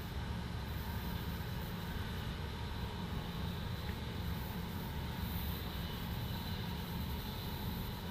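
Steady low rumble of a long heavy-haul freight train rolling at a distance, with faint steady high tones over it.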